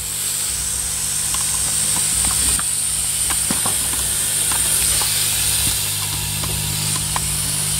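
MAX 850 hot air rework station blowing a steady airy hiss with a low hum underneath, with a few faint ticks. The hot air is being played over the flux around a BGA chip so that the flux runs in under it.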